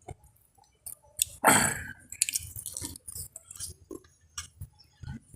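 A person chewing pig feet close to the microphone: wet mouth clicks and smacks throughout, with one louder noisy sound about a second and a half in.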